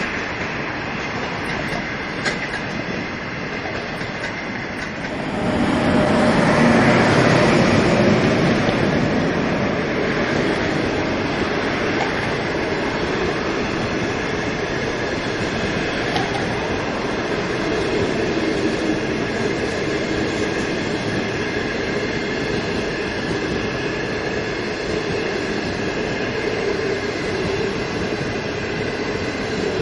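China Railway passenger train of green hard-seat coaches rolling past, a steady rumble of wheels with clickety-clack over the rail joints. It grows louder about five seconds in.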